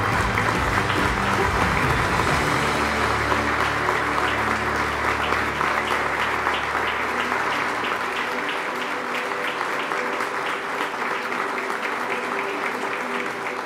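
Audience applauding steadily, the clapping slowly dying down over the last few seconds.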